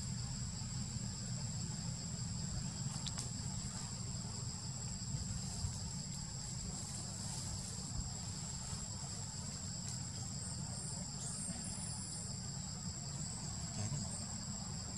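Steady, continuous high-pitched drone of an insect chorus, over a low steady rumble. A few faint high chirps come in the second half.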